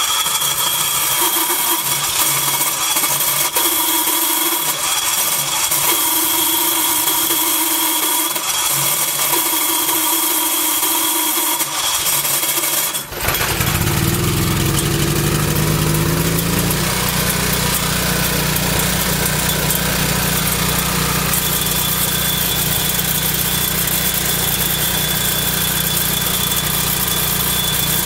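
Guardian 4700 RV generator being cranked for about thirteen seconds with horrendous metallic screeching and grinding while it turns over, a sign of its hard starting. Then the engine catches, rises in speed over a few seconds and settles into steady running.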